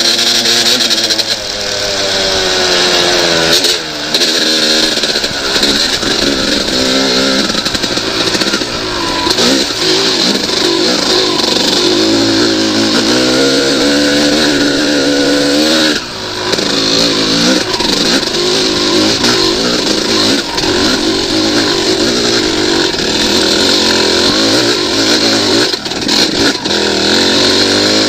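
1998 Yamaha YZ250 two-stroke dirt bike engine being ridden hard, its pitch rising and falling with the throttle. It drops off briefly about four seconds in and again around sixteen seconds in, then picks back up.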